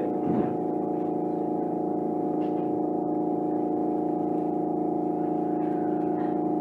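Tama Toshi Monorail 1000 series car running at a steady speed, heard from on board: a steady multi-tone hum that holds one pitch, with a light knock about half a second in.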